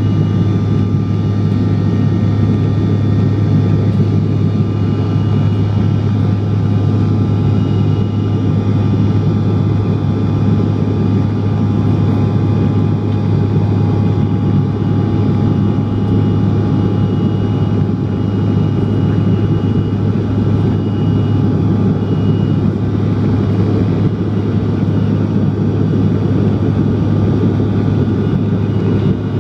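Steady cabin noise of a Bombardier CRJ-700 regional jet in its climb after takeoff: the drone of its rear-mounted General Electric CF34 turbofans and the airflow around the fuselage, heard from inside the cabin, with a strong low hum and faint steady whining tones above it.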